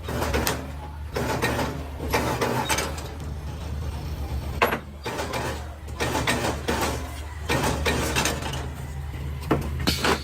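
Workshop noise: a steady low machine hum under irregular clattering and knocks, with one sharp knock a little before the middle.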